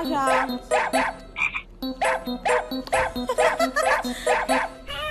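Background music with a bouncy note repeating about twice a second. Over it, a husky gives a few short, gliding whining cries.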